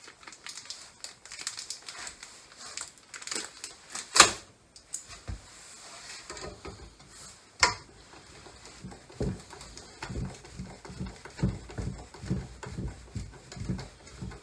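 Small screws and a clear plastic hardware bag being handled: crinkling and small clicks, with two sharp clicks about four and seven and a half seconds in. Over the last few seconds comes a run of soft low knocks as parts are fitted against a blue plastic electrical box.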